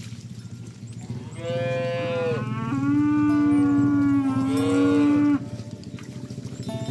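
A cow mooing: one long moo of about four seconds that starts about a second and a half in, grows louder partway through and stops abruptly.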